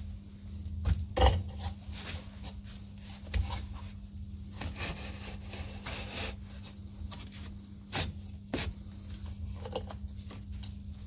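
Corded DeWalt DW341 jigsaw with a metal blade cutting steel at low speed: a steady motor hum with irregular scraping clicks from the blade on the metal.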